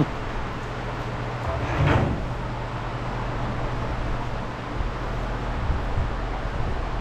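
Steady shop background noise with a low, even hum, and one brief knock or scrape about two seconds in.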